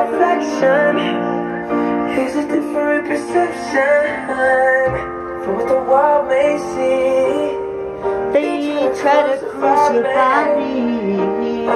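Music: a song with a voice singing long, bending notes over a sustained accompaniment.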